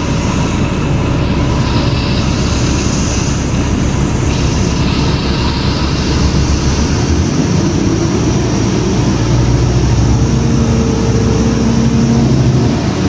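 Interior ride noise of a 2006 New Flyer D40LF diesel city bus under way: its Cummins ISL diesel engine running with road rumble. It grows heavier in the second half, with a steady engine hum near the end.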